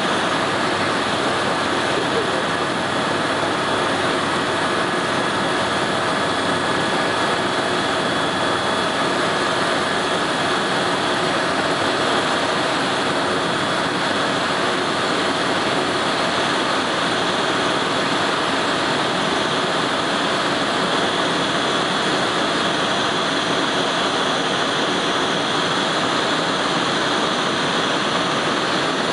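Steady engine and airflow noise of an aircraft heard from on board, an even rushing drone with a few faint steady tones and no change in level.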